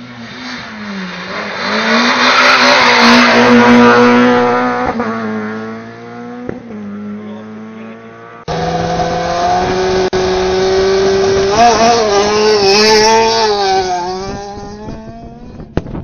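Two rally cars passing flat out, one after the other, engines at high revs. The first swells to a loud peak a few seconds in and fades as it goes by; about eight seconds in a second car cuts in, its revs rising and falling as it drives through before fading away.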